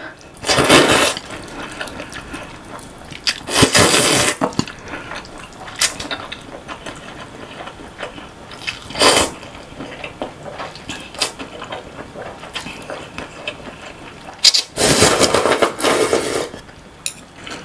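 Loud close-up slurping of cold buckwheat noodles in icy broth (naengmyeon), several separate slurps. Near the end comes a longer slurp of broth drunk straight from the bowl.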